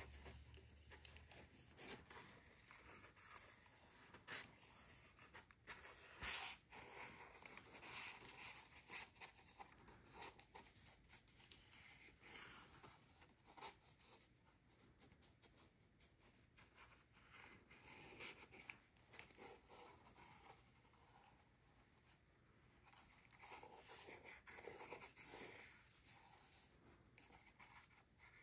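Faint paper handling: cardstock tabs being rubbed, folded and pressed down by hand, with scattered light rustles and taps and one sharper tap about six seconds in.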